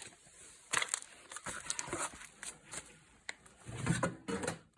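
Scattered clicks, rustles and light knocks of scrap items being handled, with a busier cluster of knocks near the end.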